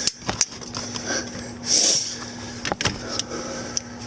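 Scattered metal clicks and taps of a socket wrench and hammer on a seized spark plug, with one sharper strike a little under three seconds in and a short hiss near the middle, over a faint steady hum.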